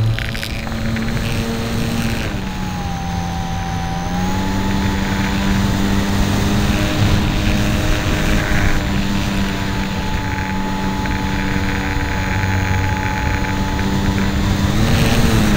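Electric motor and propeller of a Hobbyzone Super Cub RC plane in flight, heard from a camera on the airframe: a steady droning whine with wind noise. Its pitch drops about two seconds in, climbs back a couple of seconds later, and rises again near the end as the throttle changes.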